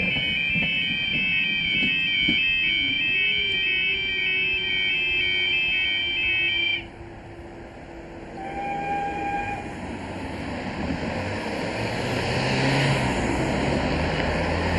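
Level-crossing warning alarm sounding a rapid, stepping two-tone warble that sounds unwell, as though faulty, then cutting off suddenly about seven seconds in. Road traffic then builds as cars drive over the crossing.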